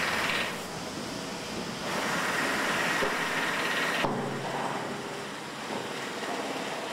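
Steady mechanical noise of engines running, with a hiss over it; the sound changes abruptly about four seconds in.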